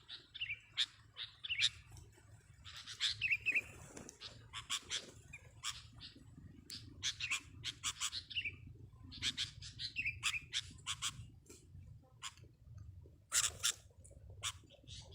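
Sooty-headed bulbuls (kutilang) calling: repeated short, sharp chirps in quick clusters, some with brief warbling falling notes, with a faint steady low hum beneath.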